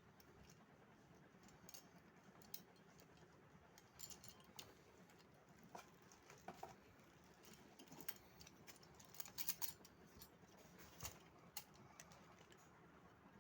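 Near silence broken by faint, scattered clicks and light taps from handling, thickest in the middle of the stretch; the horn itself is not sounded.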